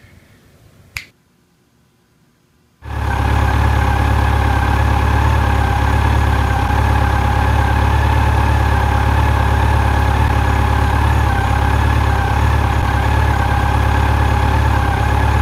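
A sharp click about a second in, then from about three seconds in a Yamaha FJR1300 inline-four engine idling steadily.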